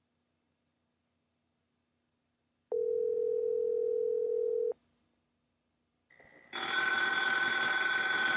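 Telephone ringback tone: a steady low tone sounding for about two seconds between silences. From about six and a half seconds in, a corded desk telephone's electronic ringer rings loudly.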